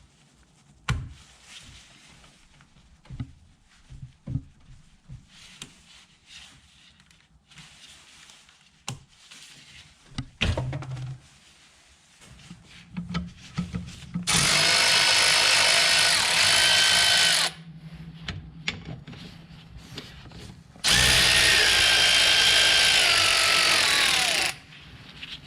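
Cordless power tool with a socket spinning in two bursts of about three seconds each, its pitch falling as the second burst winds down, running off the two nuts that hold a BMW coolant expansion tank. Before them come light clicks and knocks of parts being handled.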